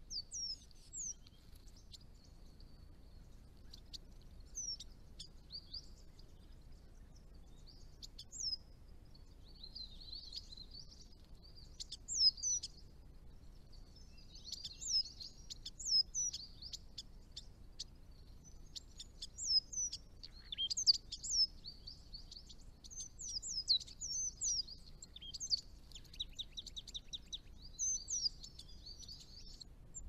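Small birds calling: many short, high chirps with quick downward sweeps, scattered and growing busier from about ten seconds in.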